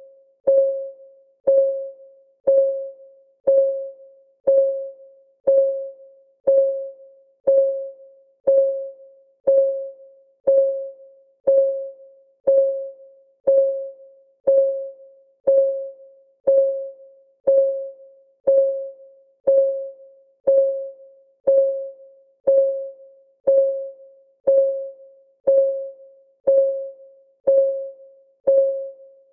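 Clock ticking sound effect counting down, one tick a second at a perfectly even pace. Each tick is a short click with a clear ringing tone that quickly dies away.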